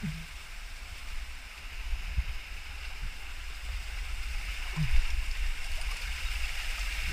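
Water from a small cascade running steadily over rocks, a constant rushing with a low rumble underneath.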